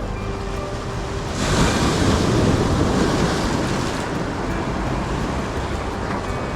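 Sea waves washing onto a rocky shore: one wave surges in about a second and a half in, then slowly subsides, with wind buffeting the microphone.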